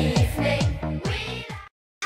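Background music with a fast electronic beat, fading and cutting to silence about a second and a half in.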